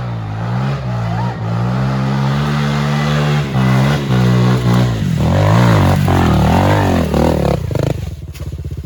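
Small pit bike engine revving up and down repeatedly as the bike is pushed through mud. Near the end it drops back to a steady, pulsing low-speed run.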